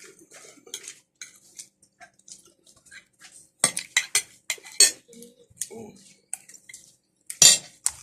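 Cutlery and dishes clinking and clattering during a seafood meal, many light clicks with a run of loud clatters about halfway through and another loud one near the end.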